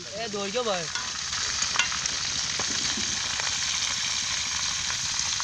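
Tandoori-marinated whole chicken sizzling steadily as it fries in hot oil in a metal wok, stirred and turned with a metal ladle and spatula. There is one sharp clink of metal about two seconds in.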